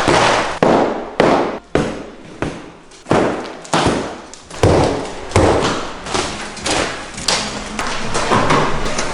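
Interior wall being demolished: a steady series of heavy blows, each crashing into breaking and falling debris, about one every two-thirds of a second.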